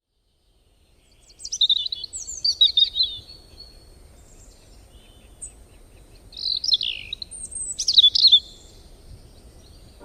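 A songbird singing in short phrases of quick, high, falling warbled notes. The song comes in after about a second of silence, rises to its loudest run between about one and a half and three seconds in, and returns with two more bursts around seven to eight seconds, over a faint outdoor background hiss.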